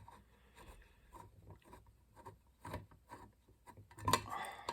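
Faint scattered clicks and light rubbing of small parts being handled during disassembly of a floppy drive, with a louder scraping rub near the end.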